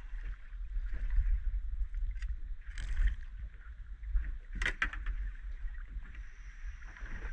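Water lapping against a small boat's hull, with a steady low rumble, as an aluminium landing net is swept through the water to scoop up a small squid. There are two short, sharp splashy knocks, about three and about four and a half seconds in.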